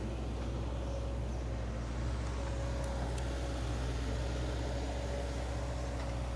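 Excavator's diesel engine running steadily, a constant low drone with a thin steady whine above it.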